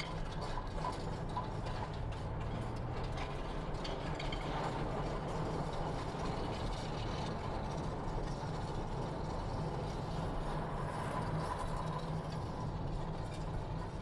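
Steady road and engine noise heard inside the cabin of a moving car, a low, even rumble without pauses.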